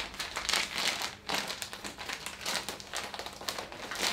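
Plastic packaging bag of a pillow insert crinkling and rustling in a series of irregular bursts as it is opened and handled.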